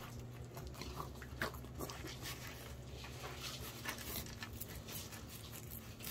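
A fillet knife cutting a walleye on a plastic cutting board: a run of faint, irregular crunching clicks as the blade works through the fish's skin and bones. There is a louder sharp knock at the very end.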